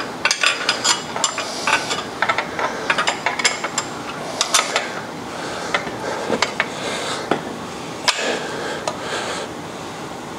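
Irregular sharp metallic clicks and clinks of a wrench tightening the main bearing cap bolts of a Ford Model T engine to 50–60 pounds torque, busiest in the first half.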